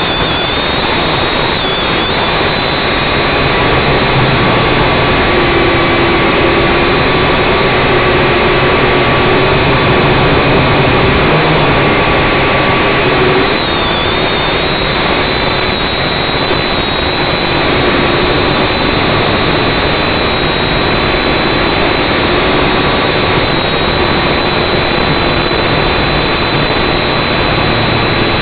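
Syma X5C quadcopter's four motors and propellers whirring loudly and steadily, heard close up on the drone itself. A high whine wavers slightly in pitch as the throttle changes.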